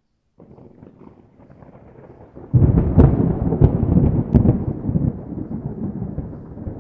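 Thunder sound effect: a faint low rumble that breaks into a loud crash about two and a half seconds in, with a few sharp cracks, then rolls on and dies down.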